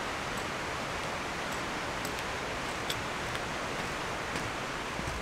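Steady rushing of flowing mountain creek water, with a few faint ticks over it.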